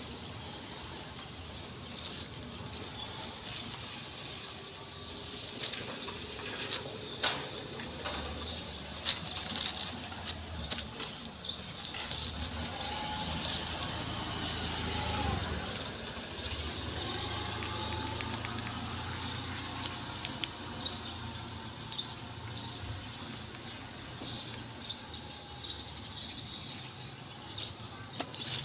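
Irregular light clicks and rattles from handling a plastic-and-metal telescoping selfie stick, busiest in the middle stretch, over steady outdoor background noise.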